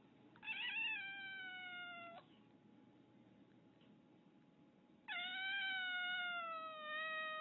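Domestic cat giving two long, drawn-out meows, each falling slowly in pitch. The second starts about five seconds in and lasts a little longer than the first.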